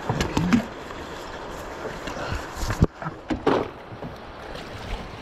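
Handling knocks and clatter aboard a small fishing boat while a fish is being landed: a few clicks and knocks at first, a sharp knock nearly three seconds in, and a short rush of noise just after it.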